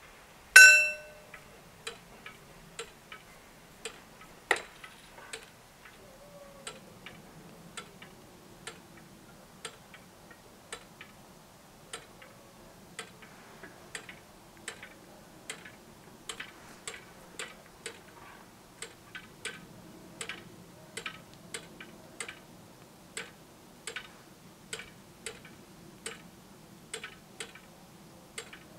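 One loud ringing strike of the crossing bell about half a second in, then a long run of sharp mechanical ticks, roughly two a second, with one heavier knock after about four seconds, as the mechanical level-crossing barriers are slowly raised.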